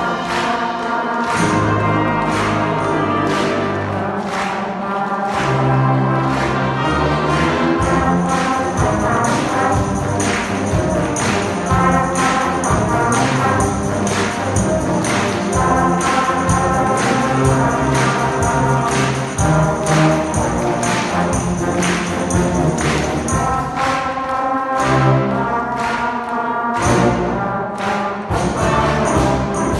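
A brass band piece played live by a large group of children on red plastic pBuzz beginner brass instruments together with a youth brass band, with a regular beat throughout.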